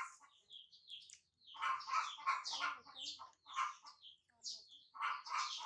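Birds chirping and clucking: short high chirps and sliding calls throughout, with two runs of rapid, lower clucking calls, one from about one and a half seconds in and another near the end.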